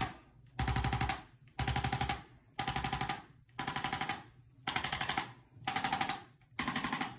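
An electric handheld chiropractic adjusting instrument pressed against the upper back, tapping rapidly in short bursts of about half a second, one burst roughly every second, with a faint motor buzz under each burst. The tapping is meant to relax the back muscles.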